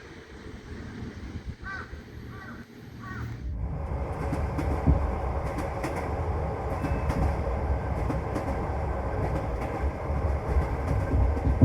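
Passenger train running on the rails, heard from a carriage: a low rumble of the wheels. For the first few seconds it is quieter, with three short faint squeals. About three and a half seconds in it jumps abruptly to a louder, steady rumble with scattered clicks.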